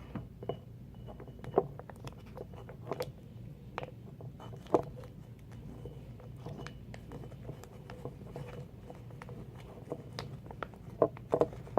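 Scattered small clicks and taps of hands handling a plastic face-mask container and a mixing cup, with a quick run of sharper clicks near the end.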